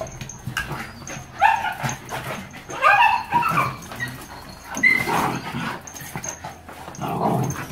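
Two dogs scuffling, with a series of high yelping, whining cries about a second and a half in, around three seconds and around five seconds, and lower growling near the end.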